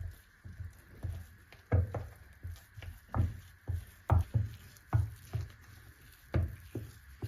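A series of dull knocks and thumps, one or two a second at an uneven pace.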